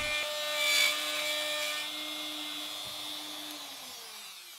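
Router running with a steady whine as it cuts the inside of a mortise in ash, slowly fading and falling in pitch as the motor spins down near the end.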